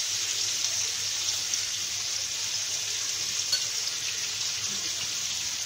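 Marinated chicken pieces sizzling steadily in hot oil and butter in a frying pan, with a few faint crackles.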